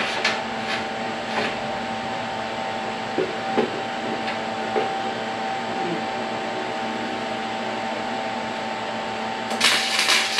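Steady hum with a few light metal clicks and knocks. About nine and a half seconds in, a welding arc strikes on the steel frame and crackles loudly.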